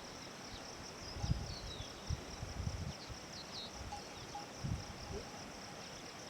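Steady high chirring of insects, with short bird chirps and a few dull low thumps.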